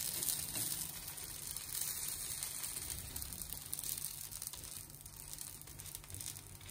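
Dosa batter sizzling on a hot tawa as the back of a ladle spreads it thin: a steady hiss that slowly fades.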